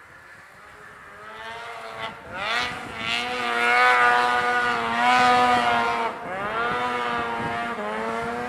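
Snowmobile engine at high revs under load, climbing a steep snow hill: faint at first, the note rises about two seconds in, holds high and steady, dips briefly around six seconds, then picks up again.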